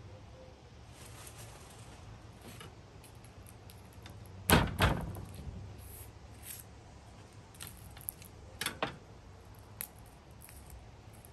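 Two sharp knocks on a wooden cutting board about halfway through, as a garlic clove is smashed under the flat of a kitchen knife, followed by a few lighter taps and clicks.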